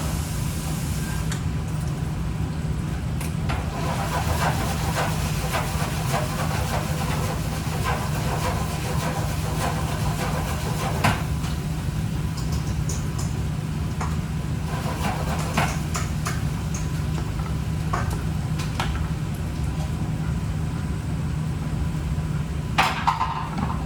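Steady low mechanical hum of a kitchen fan or motor, with a few scattered clicks and knocks of cookware and utensils, several together near the end.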